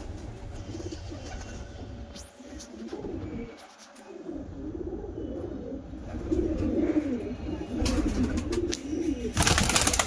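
Domestic pigeons cooing, with repeated low, wavering coos that grow louder in the second half. A loud, noisy burst comes in near the end.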